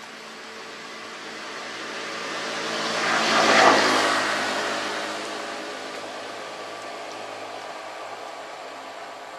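A vehicle passing by: a rushing noise that swells to its loudest about three and a half seconds in, then slowly fades away.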